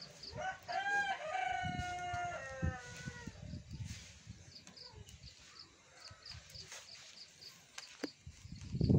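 A rooster crowing once: one long call of about three seconds that falls in pitch at the end. Faint high chirps repeat about twice a second.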